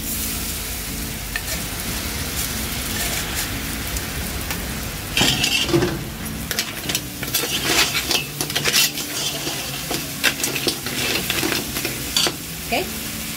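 Crab pieces sizzling steadily in a large pot while a metal spoon stirs them, knocking and scraping against the shells and the pot in irregular clatters from about five seconds in.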